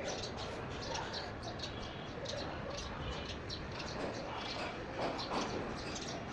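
Small birds chirping over and over, quick high chirps several times a second, over a steady background hiss.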